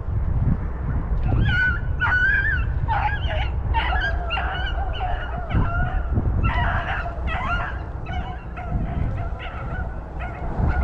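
A pack of rabbit-hunting hounds giving tongue, many short overlapping bawls and yelps, while running a rabbit. Wind rumbles on the microphone underneath.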